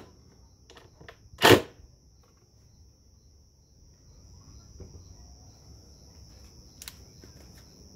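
A single sharp knock about a second and a half in, followed by a few faint clicks of tool handling.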